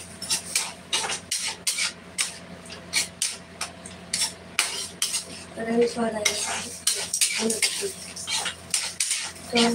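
Metal spoon stirring in a steel pan, clinking and scraping against its sides and bottom with several sharp knocks a second.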